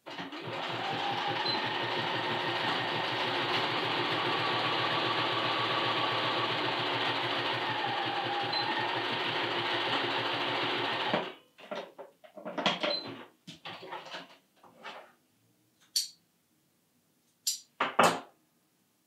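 Computerized sewing machine stitching steadily across a knit neckband seam for about eleven seconds, then stopping suddenly. A scatter of short clicks and knocks follows as the machine and fabric are handled.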